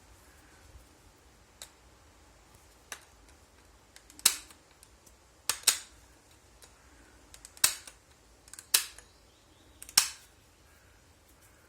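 A series of sharp knocks or clacks, irregularly spaced, some in quick pairs. Two small ones come early, then five or six loud ones follow over the middle of the stretch, with quiet between.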